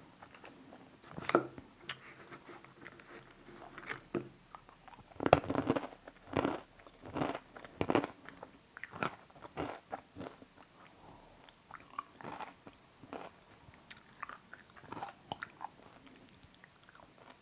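Close-up chewing and biting of crunchy food, irregular crackly crunches that are loudest a few seconds in, then softer chewing.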